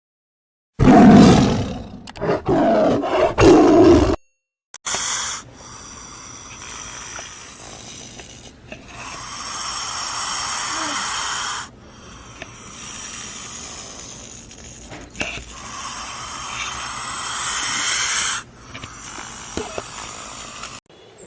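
A large animal roaring loudly and roughly for about three seconds. Then, after a short break, a quieter, steady rushing background with faint high whining.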